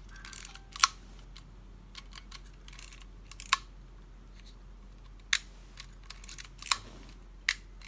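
Canon Canonet QL17 GIII rangefinder camera being worked by hand: its leaf shutter fired and its film advance lever wound, giving about five sharp clicks with fainter ratcheting ticks between them.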